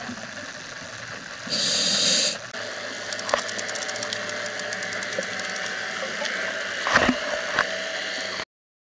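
Underwater sound through a dive camera's housing: a short hissing rush of bubbles, then a run of fast, evenly spaced clicks and a single louder knock. The sound cuts off abruptly near the end.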